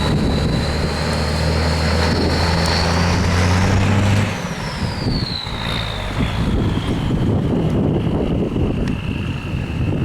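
M35A2 deuce-and-a-half truck's turbocharged multifuel diesel pulling under load, with a high turbo whistle rising in pitch. About four seconds in the engine note drops off and the whistle slowly falls in pitch as the turbo spools down.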